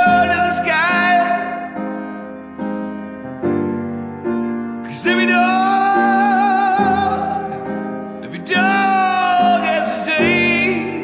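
Song: a voice holding three long, wavering sung notes over steady sustained keyboard chords.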